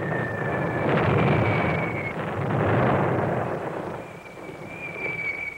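Film sound effects of bomb blasts: rumbling explosions swelling twice, about a second and a half apart, with thin high whistles over them.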